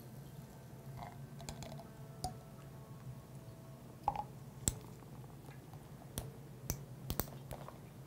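Glass lab ware knocking and clinking on a benchtop as a graduated cylinder and Erlenmeyer flasks are handled and set down. Scattered sharp taps, the loudest about four seconds in and a cluster near the end.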